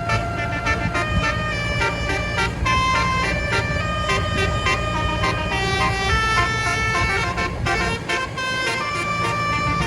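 Telolet basuri multi-tone bus horn playing a melody, one steady note after another changing pitch every fraction of a second, over a constant low rumble.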